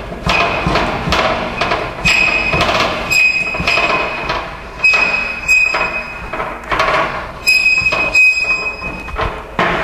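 Steel lock connecting rod being fed along the underside of a four-post lift's runway, scraping metal on metal in several drawn-out strokes, each with a high squeal.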